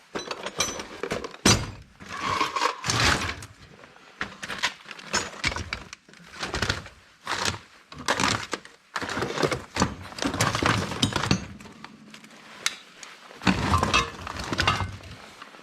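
Hand tools and small hard parts being rummaged through and set down: irregular clattering knocks and clinks, some sharper than others.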